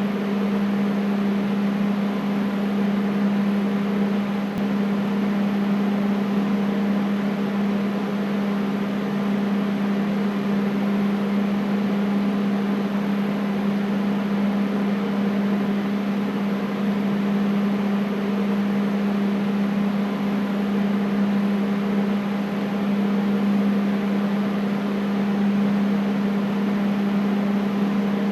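Air conditioner running steadily: a constant low hum with a few fainter higher tones, under an even hiss of moving air.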